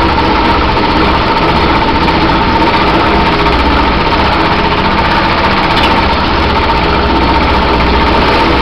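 Shop-built fixed-stroke reciprocating hammer, converted from an old riveter, running steadily as it hammers a bead into a sheet-metal floor pan between dies. It makes a continuous, even machine drone with a steady high hum.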